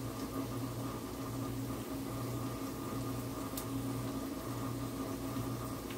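Steady low mechanical hum, like a kitchen fan or appliance running, with one faint tick about three and a half seconds in.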